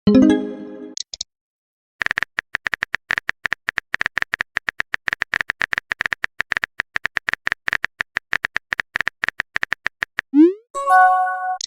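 Text-chat sound effects: a fast, even run of short beeping clicks like typing, opened by a rising swoop and a chime, with a second swoop and a ringing chime near the end, as messages are sent or arrive.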